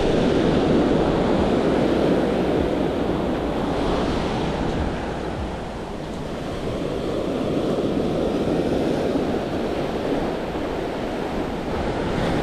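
Ocean surf breaking and washing up a sandy beach, a steady rush of water that eases around the middle and builds again toward the end.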